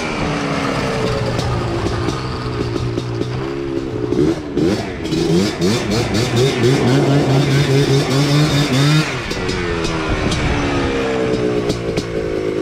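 Yamaha Blaster's single-cylinder two-stroke engine being ridden and revved as it warms up, its pitch rising and falling with throttle and gear changes. It runs hardest in the middle and drops to a lower, steadier note about nine seconds in.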